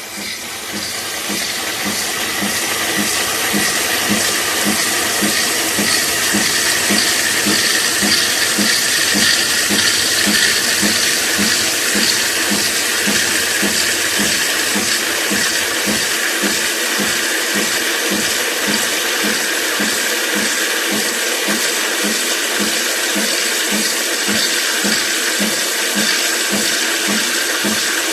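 Nespresso Lattissima coffee machine running its cappuccino cycle: a steady hiss with a regular pulsing about twice a second.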